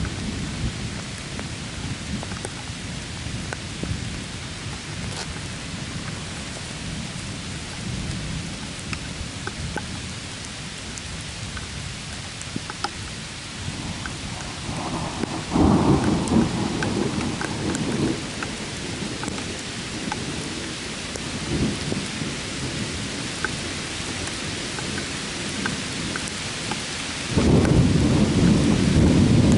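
Thunder over steady rain: a low rumble at first, then a sudden louder peal about halfway through that dies away over a few seconds, and another loud peal starting near the end. Rain hisses throughout, with scattered raindrop ticks.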